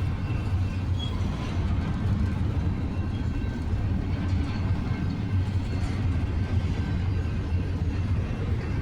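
Freight train cars rolling past close by: a steady, even rumble of steel wheels on the rails.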